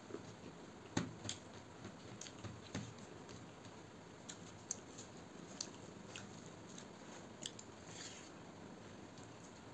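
A person eating rice and chicken curry by hand: soft chewing and mouth sounds, with scattered light clicks of fingers working the food on a steel plate, the sharpest about a second in.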